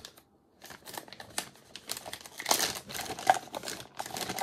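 Plastic packaging crinkling and rustling as the contents of a resin kit are handled and unpacked. It starts after a moment's quiet about a second in and goes on as a dense run of irregular crackles.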